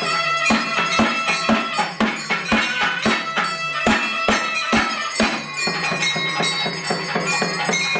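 Traditional South Indian wedding band music: a nadaswaram playing a melody over a steady drone, with thavil drum strokes about twice a second, turning to lighter, quicker beats about five seconds in.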